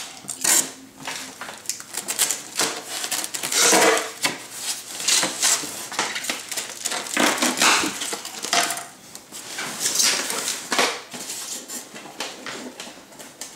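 Plastic wrapping rustling and crinkling, with irregular knocks and scrapes from styrofoam packing, as hands dig around inside a foam-packed box.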